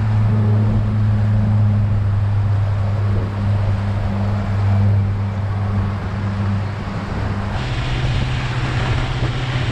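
Motorboat engine running at a steady cruising speed with a low hum. About two thirds of the way in, the engine note changes and the rushing hiss of the churning wake behind the stern joins it.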